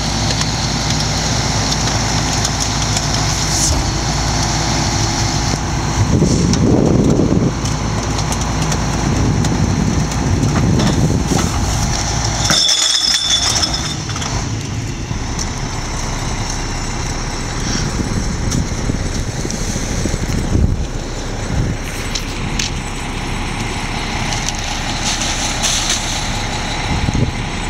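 Heil split-body rear-loading garbage truck running steadily, louder for a moment around six seconds in. A brief air hiss about halfway through.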